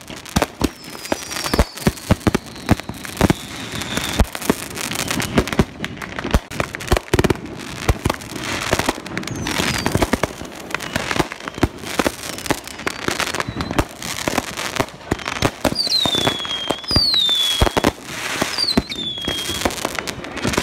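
Consumer fireworks going off: a rapid, irregular string of bangs and crackles, joined near the end by several short whistles that fall in pitch.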